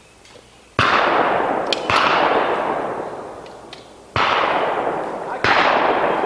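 Four gunshots at irregular spacing, each followed by a long fading echo.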